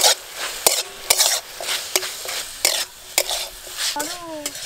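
Metal spatula stirring and scraping chicken and onions in an aluminium kadai, the food sizzling in hot oil; the spatula knocks against the pan about twice a second.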